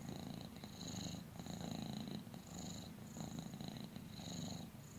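Domestic cat purring: a quiet, steady rumble that swells and eases in repeated cycles, a little over one a second. It is given as an example of the vibration of the rolled Russian R.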